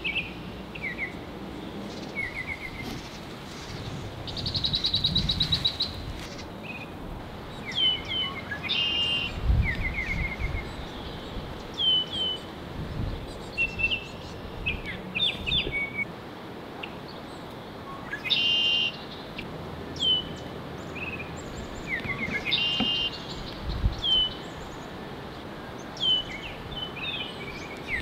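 Songbirds calling: repeated short, sharp chips and brief trills, with a longer rapid rattle about five seconds in. A few low thumps sound underneath.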